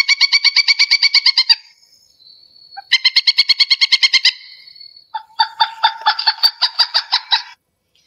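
Pileated woodpecker calling: three series of rapid, evenly repeated notes at about ten a second, each series lasting one and a half to two seconds with short pauses between.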